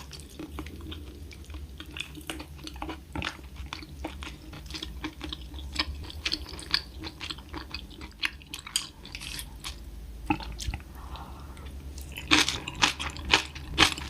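Close-miked eating: a person chewing and biting, with many short wet clicks and crunches, busier and louder near the end.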